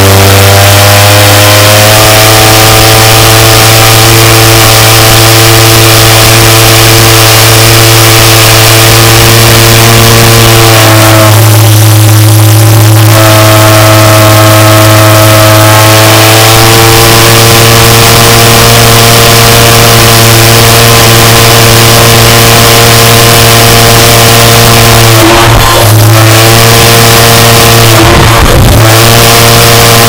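A 6-inch Stevens & Struthers organ-pipe steam whistle blowing one long, loud, deep steady tone rich in overtones. Its pitch shifts about eleven seconds in and wavers briefly twice near the end.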